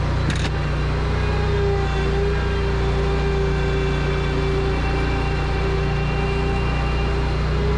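Commercial lawn mower's engine running steadily at working speed while the mower drives across pavement, with a short sharp click about half a second in.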